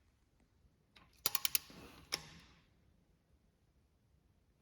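Sharp metallic clicks of hand tools on an engine: a quick run of about five about a second in, then one more half a second later, each with a short ring.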